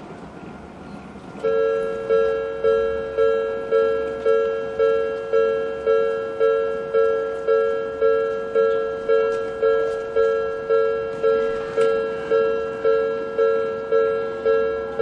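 Japanese railway level-crossing alarm of the Odakyu type, starting about a second and a half in: an electronic two-tone ding struck repeatedly, about twice a second, each strike fading before the next.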